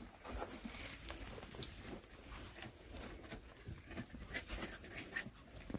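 Light rustling and soft irregular knocks of animals shuffling about on a straw-covered barn floor.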